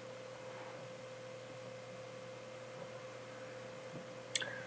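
Faint room tone: a steady single-pitched hum over light hiss, with one short high-pitched click near the end.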